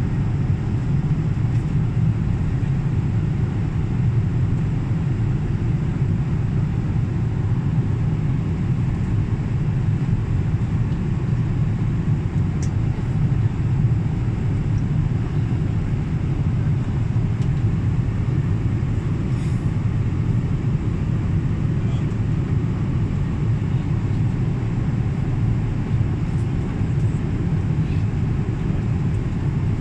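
Steady in-flight cabin noise of a Boeing 777 airliner: an even low rumble of engines and airflow that does not change.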